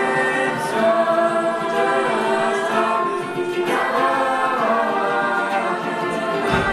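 A large mixed choir singing held chords together with two lead singers, a young woman and a young man.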